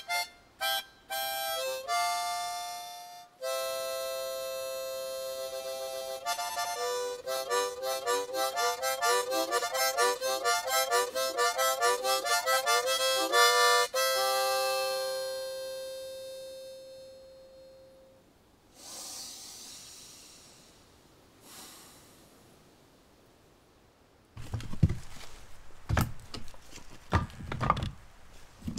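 Harmonica playing a short phrase: a few separate notes, then a fast warbling run between two chords, ending on one long note that fades away. Near the end a string of knocks and clatter of objects being handled.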